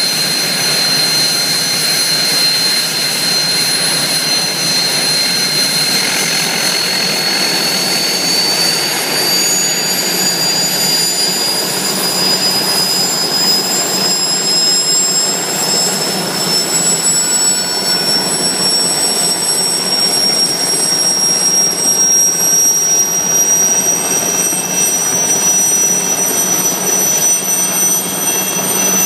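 Light turbine helicopter running on the ground with its rotor turning: a high turbine whine climbs slowly in pitch throughout as the engine speeds up, over a steady rushing noise.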